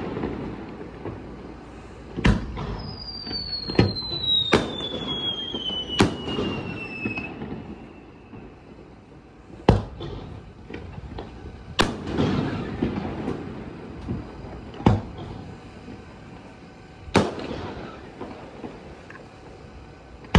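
Fireworks display: about eight sharp bangs of aerial shells bursting at uneven intervals, several followed by a low rumble. A few seconds in, a long high whistle slides steadily down in pitch.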